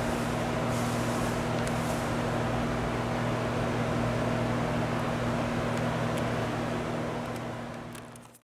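Steady mechanical hum of an underground railway station's ventilation, a low drone with a faint higher tone over it, fading out near the end.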